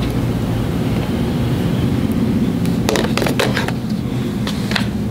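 A steady low hum, with a quick run of clicks and plastic rattles about three seconds in and two more near the end, from a phone and its packaging being handled on a store counter.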